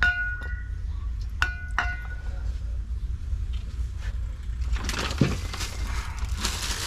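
A few short metallic clinks near the start and again about a second and a half in. Then, from about five seconds in, the hiss of an aerosol can of brake cleaner spraying onto a brake caliper, over a steady low hum.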